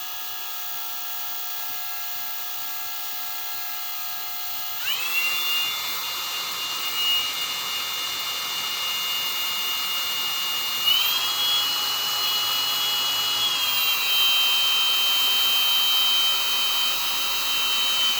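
Electric drill running slowly with a 5/16-inch bit, boring a hole; its steady whine steps up in pitch and gets louder about five seconds in and again about eleven seconds in.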